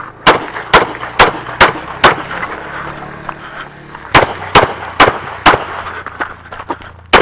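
Centerfire pistol shots in quick strings: five shots about half a second apart, a pause of about two seconds, then four more, and one more just at the end. Fainter cracks sound in the gaps.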